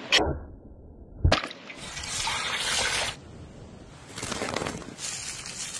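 Raw potato sticks dropped into a bowl of water with a splash, with a second splash about a second later, followed by stretches of steady hiss.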